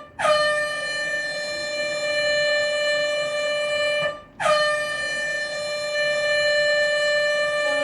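Air horn sounding in long, steady, high blasts of about four seconds each, with a brief break about four seconds in. Each blast dips slightly in pitch as it starts.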